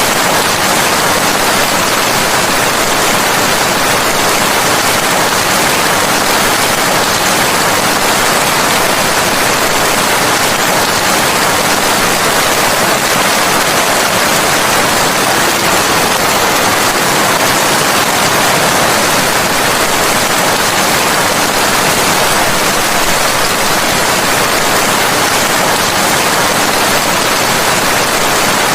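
Steady rain: a dense, even hiss with no single drops or pauses standing out.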